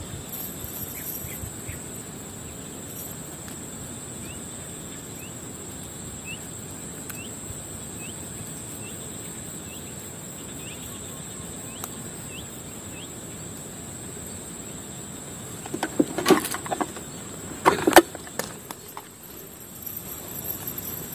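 A steady high-pitched drone of insects, with short rising chirps repeated about twice a second for the first dozen seconds. Near the end come two loud bursts of close rustling and knocking, the second with a sharp knock.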